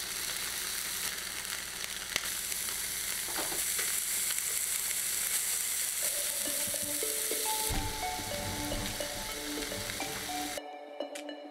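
Ground-beef kofta skewers sizzling on a ridged electric contact grill, a steady hiss of frying meat and fat. Music comes in about halfway through, and the sizzling cuts off suddenly near the end, leaving only the music.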